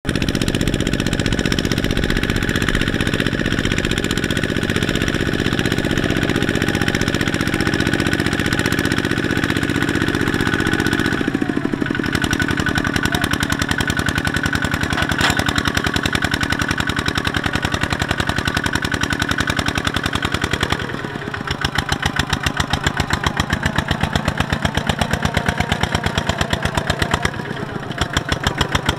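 Two-wheel walking tractor's single-cylinder diesel engine running hard while its wheels churn through deep mud, a rapid, even chugging beat. The beat dips briefly twice in the second half.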